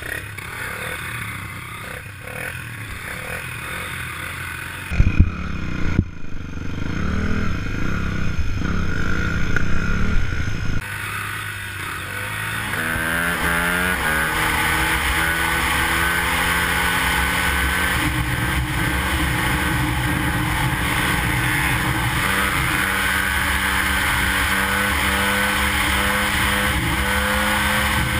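ATV engine and wind noise over rough ground, with a couple of sharp knocks about five seconds in. Then a dirt bike engine revs up through the gears and holds a steady drone at road speed.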